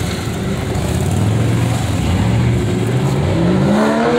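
Car engine running at low revs, then revving up, its pitch rising over about the last second.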